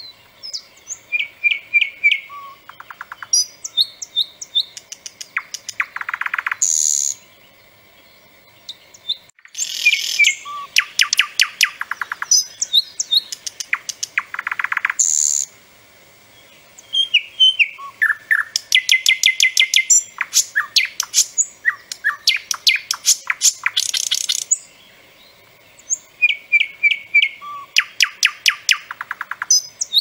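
Thrush nightingale singing: several loud phrases of rapid repeated clicks, rattles and piping whistles, each a few seconds long, with short pauses between them.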